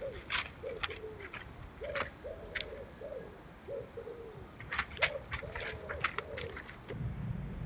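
A pigeon-family bird cooing in a repeated series of short, low, falling notes, a few of them longer. Short dry crackles come in two clusters over the cooing.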